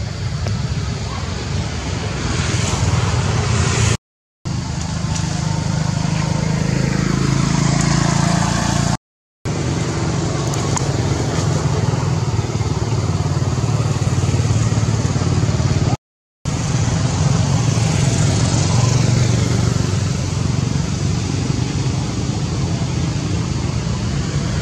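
Steady low rumble of motor traffic, motorbike engines among it, broken by three brief silences.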